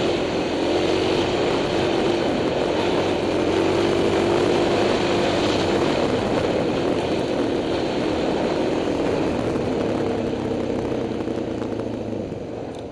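Dirt bike engine running steadily while riding a dirt trail, heard from on board, with small changes in pitch as the throttle varies. It gets quieter near the end.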